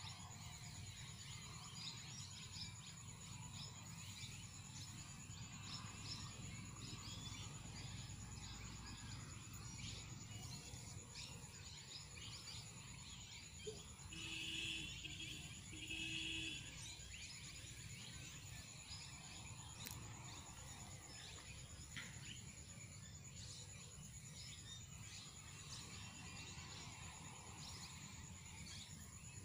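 Quiet outdoor ambience over a rice field: a low steady rumble, scattered faint bird chirps and a steady high-pitched hum. About halfway through, two short calls, each under a second and about a second and a half apart, stand out as the loudest sounds.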